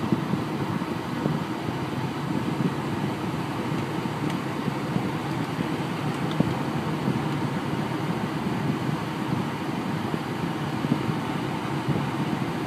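Steady road noise inside the cab of a Ford F-250 pickup driving at highway speed.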